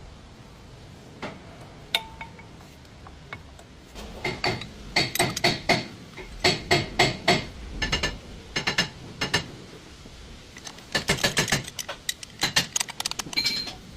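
Metal striking metal: runs of sharp taps and clinks, several a second, each with a brief ring. These are likely tools knocking on car brake parts.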